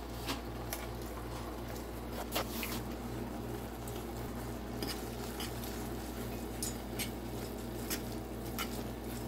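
Ramen noodles being stirred in a metal saucepan: scattered light clicks and taps of a utensil against the pot over a steady low hum.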